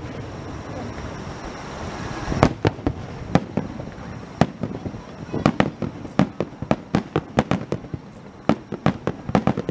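Aerial firework shells bursting overhead: one loud bang about two and a half seconds in, then a rapid, irregular run of sharp bangs that comes thicker from about halfway.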